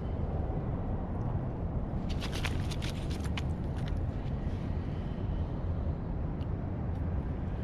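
Steady low rumble, with a quick run of sharp splashes and clicks about two seconds in as a spotted bay bass is swung up out of the water and handled.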